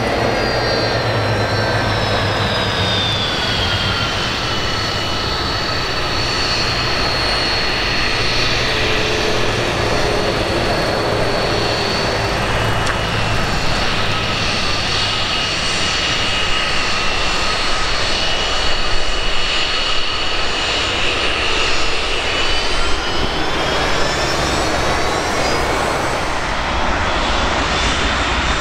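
BAe 146-100 jet airliner taxiing on its four Lycoming ALF 502 turbofans: a steady jet rumble with a high whine. The whine drops in pitch about three seconds in and climbs again a few seconds before the end as the aircraft turns onto the runway.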